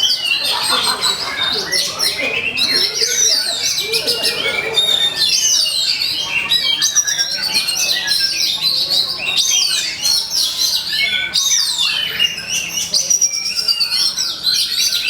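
Oriental magpie-robin (kacer) singing a loud, unbroken stream of rapid, varied whistles, chirps and trills: a full fighting song of the kind played as a lure to provoke other kacer into singing.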